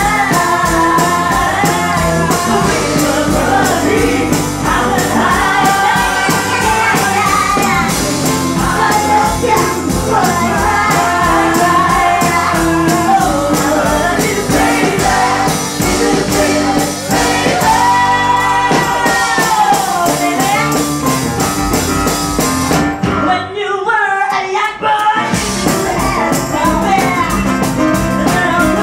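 Live pop-soul band with congas, bass guitar and backing singers playing while a female lead singer sings. About 23 seconds in the band briefly drops out, leaving the voices alone, then comes back in.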